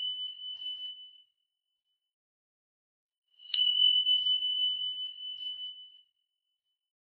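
A high, pure bell-like tone: one ringing note fades out within the first second, then another is struck about three and a half seconds in and rings for about two and a half seconds before fading away, with silence between the two.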